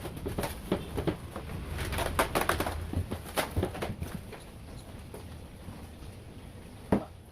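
Clicks, rattles and knocks of exercise-bike parts and packaging being handled, busiest in the first four seconds. A single sharp knock comes near the end.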